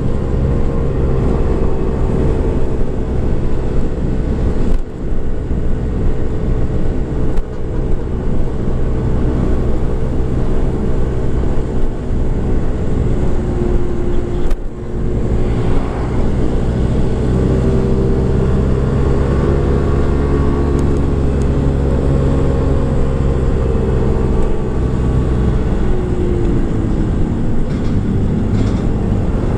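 Motorcycle engine running while riding, its pitch rising and falling with the throttle, over heavy wind noise on the microphone. The engine note briefly drops twice, about 5 and 15 seconds in.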